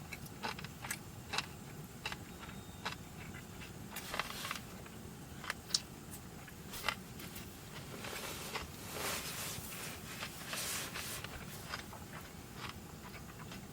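Things being handled at close range: a string of small clicks and light knocks, two sharper clicks a little past halfway, then a longer stretch of rustling, over a low steady hum.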